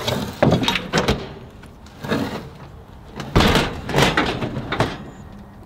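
A Camp Chef portable propane camp oven being handled: its metal body and lid knock, rattle and shift. There are several sharp knocks in the first second, and a denser run of rattling and scraping from about three and a half to five seconds in.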